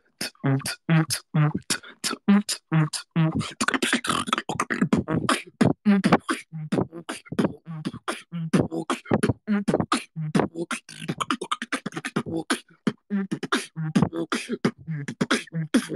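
Solo beatboxing: a fast beat of mouth-made low bass kicks alternating with sharp snare and hi-hat clicks, busiest around four to six seconds in.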